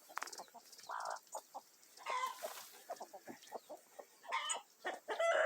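Farmyard fowl clucking and calling, many short calls overlapping one another, loudest near the end.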